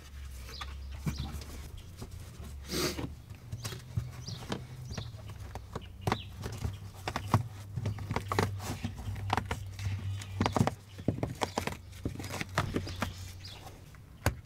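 Soundproofing mat over a car's fuel-pump access plate being cut through and peeled away by hand: irregular scraping, ripping and tapping, over a steady low hum.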